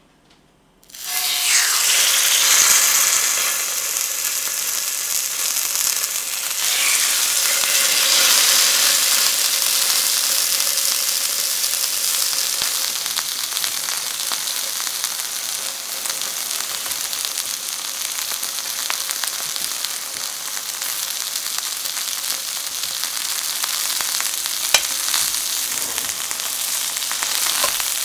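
Two seasoned chicken breasts sizzling in hot rapeseed oil in a frying pan, the sizzle starting suddenly about a second in as they go into the oil and carrying on steadily. One sharp click stands out near the end.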